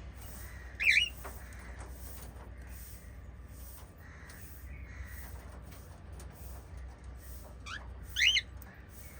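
Small pet parrots calling: two loud, sharp, warbling chirps, about a second in and near the end, over soft chirping and a low steady hum.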